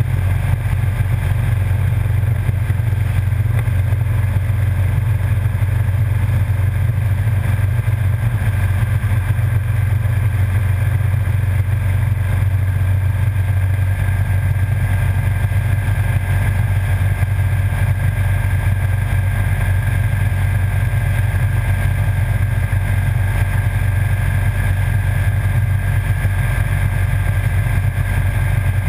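Motorcycle cruising at a steady speed: an even low engine drone mixed with wind and road noise, with a faint steady whine above it, picked up by a camera mounted low by the front wheel.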